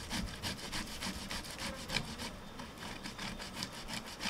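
A boiled, peeled potato rubbed back and forth over a round stainless steel grater: quick, rhythmic rasping strokes, several a second, getting fainter after about two seconds.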